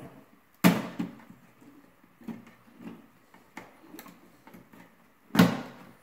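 Wall light switch being pulled out of its electrical box: two sharp clacks, about a second in and near the end, with fainter clicks and scrapes between.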